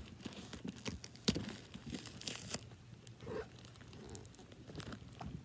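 Clear plastic wrap crinkling and tearing as it is pulled off a cardboard box, in irregular crackles with a sharp snap about a second in and a longer rip about two seconds in.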